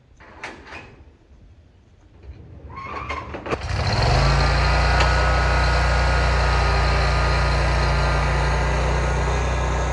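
A few light clicks, then about three and a half seconds in a zero-turn mower's engine cranks and starts, and runs on steadily.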